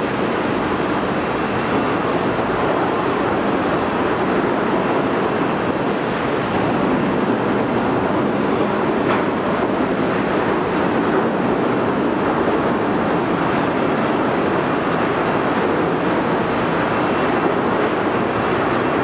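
Steady rushing churn of propeller wash behind the departing M/V Samish, a Washington State Olympic-class ferry, with wind on the microphone.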